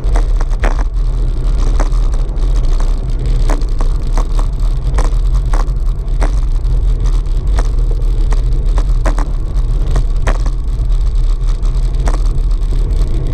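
Wind buffeting the microphone of a camera on a bicycle riding along a road, a heavy, steady rumble with tyre and road noise, broken by scattered short clicks and knocks.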